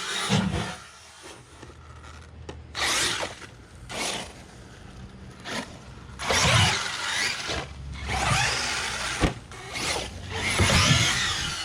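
Large brushless electric RC truck driven hard: the motor whines up in repeated throttle bursts with the tyres spraying dirt, and a single sharp knock about nine seconds in.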